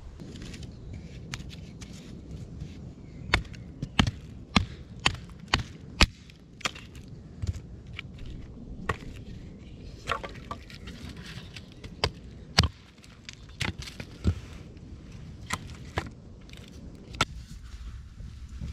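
Irregular sharp knocks of dry wood, loudest in a quick run a few seconds in: sticks of firewood being handled and knocked together.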